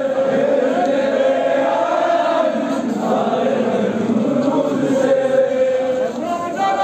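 A crowd chanting protest slogans together, the voices drawing out long held notes.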